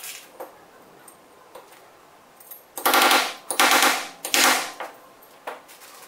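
Small hand-held power screwdriver whirring in three short bursts, one after another about two seconds in, as it drives fasteners into an airgun body. Small handling clicks come before and after.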